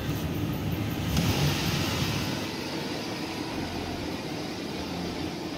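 2009 Chevy Silverado 1500's engine heard from inside the cab, brought up from idle to a fast idle of about 2000 rpm. A rush of sound swells about a second in, then eases. It runs smoothly and evenly after a head gasket replacement.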